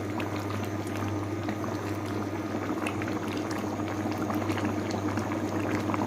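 Chicken curry simmering in a pot, bubbling with many small pops, over a steady low hum.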